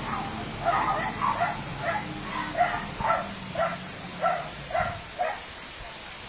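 A dog barking repeatedly, about a dozen short barks roughly two a second, stopping about five seconds in, over a low steady hum.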